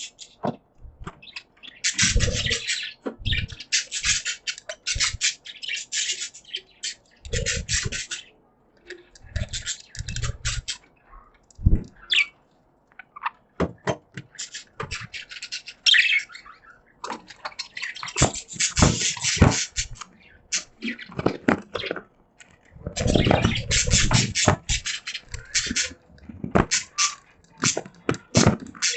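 Pet budgies chattering and warbling in bursts of one to three seconds with short pauses between, a dense run of quick chirps and clicks, with some low knocks mixed in.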